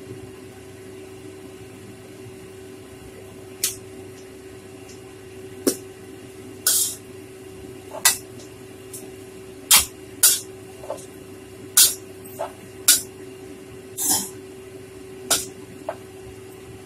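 Metal spatula scraping and clanking against a steel wok as fried rice vermicelli is stirred and tossed: about a dozen short strokes at uneven intervals, starting a few seconds in, over a steady low hum.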